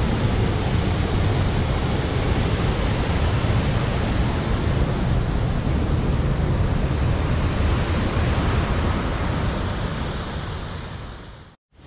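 Really loud, steady rush of the rain-swollen Rajpuri waterfall, muddy floodwater pouring over the rock and churning in the plunge pool. It fades and cuts off just before the end.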